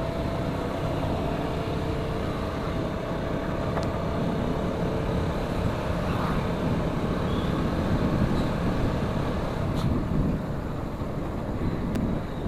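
Motorcycle running at a steady pace while being ridden, its engine hum mixed with road and wind noise.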